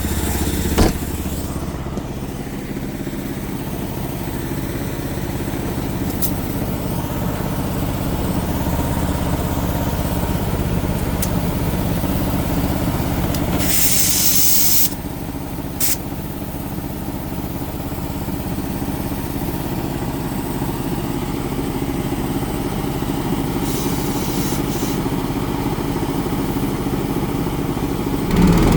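An engine running steadily throughout, with a short burst of hissing about halfway through and a few light clicks.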